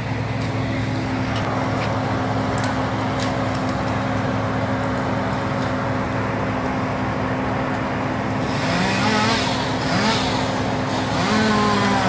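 Engine of tree-removal machinery running steadily, then revving up and down in pitch from about eight seconds in.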